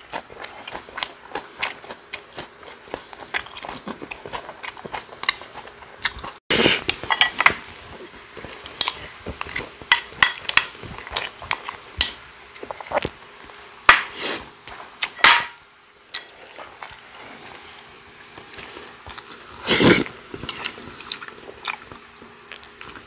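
Eating sounds: metal chopsticks and a spoon clicking and scraping against ceramic bowls and an earthenware stew pot, with chewing. The clicks come in scattered irregular runs, with a few louder clacks.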